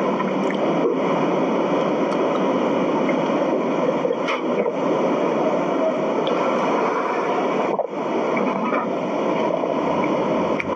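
A steady, even hiss-like noise with no clear pitch or rhythm, dipping briefly about one second and about eight seconds in.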